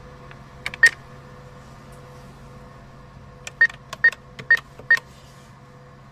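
ATM keypad buttons pressed, each press giving a click and a short high beep: one press just under a second in, then four quick presses about half a second apart, over the machine's steady hum.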